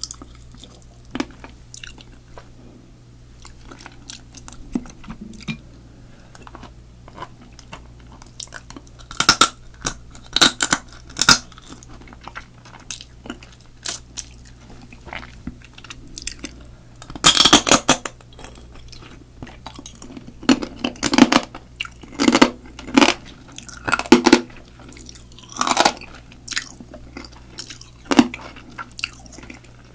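Close-miked eating of spicy marinated raw crab (yangnyeom-gejang). Wet sucking of meat and sauce from the crab pieces and fingers is mixed with chewing and crunching of the shell. It starts as scattered soft clicks and comes in louder clusters from about a third of the way in.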